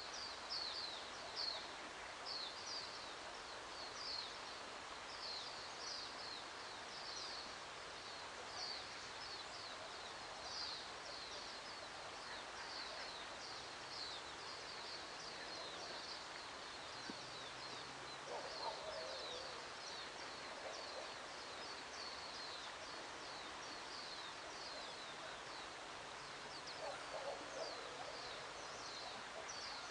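Birds chirping continually outdoors: a stream of short, high, falling notes, with a lower call about two-thirds of the way through and again near the end, over a faint steady background hiss.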